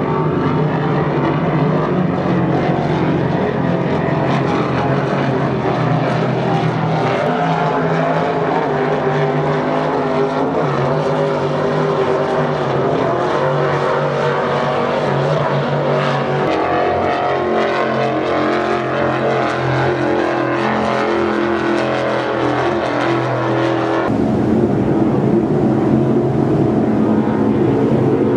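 A loud, steady engine drone holding several fixed pitches, which changes abruptly about 24 seconds in.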